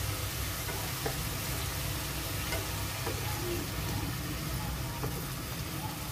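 Chicken pieces sizzling in a hot pot as soy sauce is poured over them, with a few light clicks of a metal spatula.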